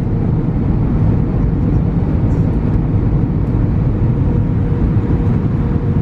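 Steady cabin noise of a jet airliner descending toward landing: engine and airflow rush, mostly low in pitch, with a faint steady hum running through it.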